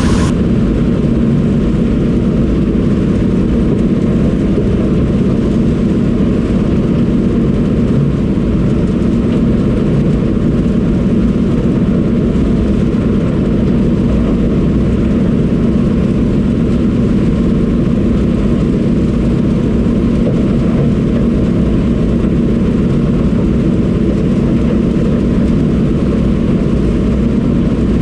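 Combine harvester running steadily under load while shelling corn: a loud, unchanging machine drone.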